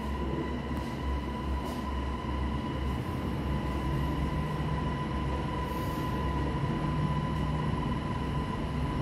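KONE TranSys elevator car travelling upward: a steady low rumble of the ride with a constant high-pitched whine over it.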